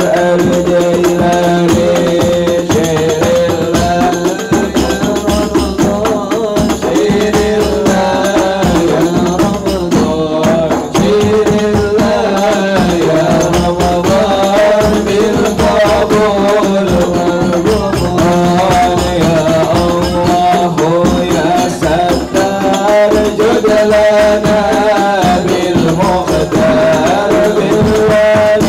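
Hadroh ensemble performing: voices singing a devotional song over rebana frame drums beaten in a steady, busy rhythm with jingling percussion.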